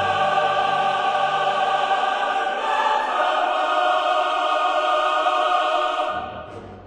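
Choral music: voices holding long sustained chords, shifting to a new chord about three seconds in, then fading out near the end.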